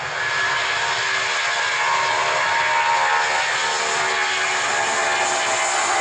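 Boeing 757 jet engines roaring as the airliner speeds down the runway close by, with several whining tones over the roar that drop slightly in pitch near the end as it passes.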